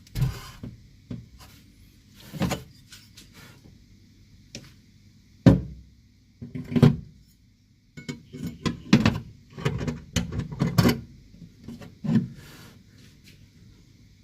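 Irregular metallic clicks and knocks of Cleco temporary fasteners being handled and set into pre-drilled holes in sheet metal with Cleco pliers. The loudest knock comes about five and a half seconds in, and there is a dense run of clicks from about eight to eleven seconds.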